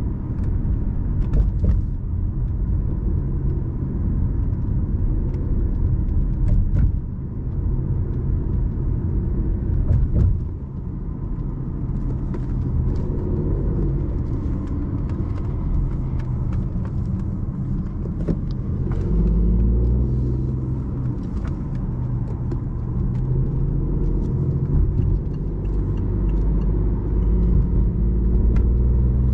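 BMW i8 coupe driving on the road, heard from inside the cabin: a steady low rumble of its small three-cylinder petrol engine and tyre noise while gently gaining speed. About two-thirds of the way through, a clearer engine note comes up.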